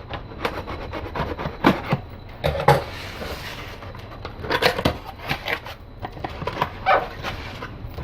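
Cardboard product box being opened and its packaging handled: scattered taps, knocks and scrapes with short rustles.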